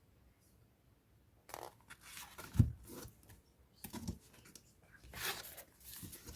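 Rustling and scraping of paper and packaging as a book is handled, in several short bursts, with a dull thump about two and a half seconds in.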